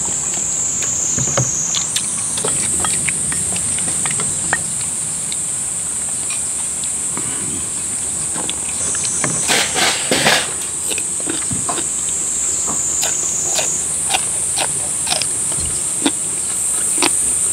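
Steady high-pitched drone of a summer insect chorus, stepping up and down in level a few times. Under it, small clicks and clinks of chopsticks and spoons against stainless steel bowls as people eat, with a louder patch of eating noise about ten seconds in.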